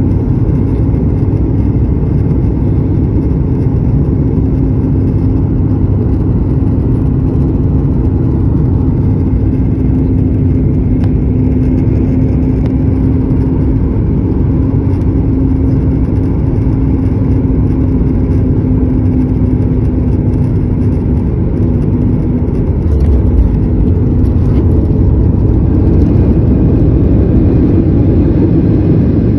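Airliner cabin noise while taxiing: the jet engines and the airframe make a steady low rumble, with a steady hum that fades out about two-thirds of the way through, after which the level rises a little.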